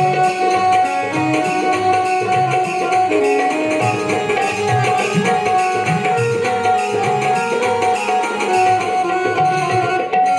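Devotional bhajan music: tabla playing a steady rhythm under a melodic accompaniment, over a held drone note.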